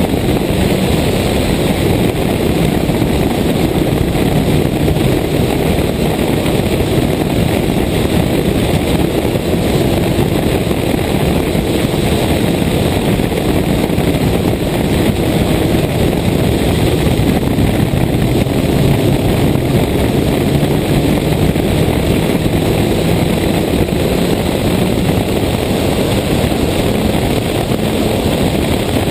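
Toyota Corolla 1.6 rally car's four-cylinder engine running hard at speed, its pitch rising and falling, under heavy wind noise on the outside-mounted microphone.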